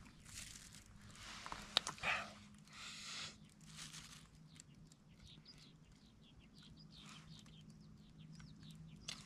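Faint rustling and a few sharp clicks from food and a bean paste container being handled during a meal, over a low steady hum.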